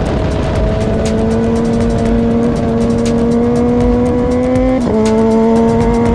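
Motorcycle engine pulling under acceleration, its pitch climbing steadily. It drops sharply near the end as it shifts up a gear, then climbs again.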